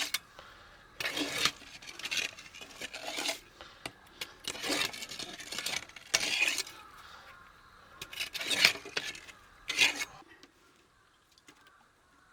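Irregular bursts of scraping and clinking, hand work with tools or materials, stopping about ten seconds in.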